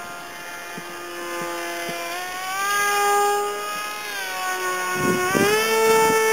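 Small RC delta-wing plane's motor and propeller whining in flight. The pitch dips and rises several times as the plane changes speed and passes, and climbs sharply near the end.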